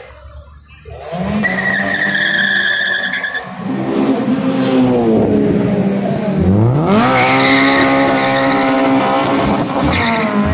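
Honda car engines revving hard with tyres squealing in two long spells, one near the start and one just past the middle. Between them the engine note drops and then climbs steeply again.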